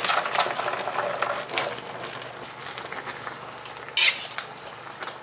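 Metal spatula scraping and stirring diced pork and carrots in a wok, over a faint hiss of the food cooking. A single louder scrape or clank comes about four seconds in.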